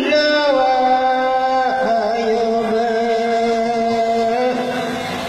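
Chak traditional folk song sung unaccompanied by a single voice through a microphone, in long held notes. The pitch steps down once about one and a half seconds in, and the line eases off near the end.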